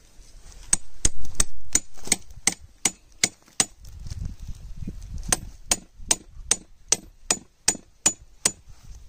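A steady series of sharp, ringing knocks, a little under three a second, starting about a second in and stopping near the end.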